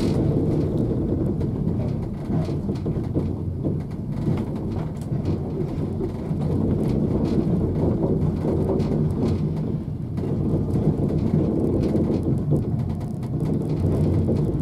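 Steady low rumble of a passenger train running on the rails, heard from inside the carriage, with scattered light ticks.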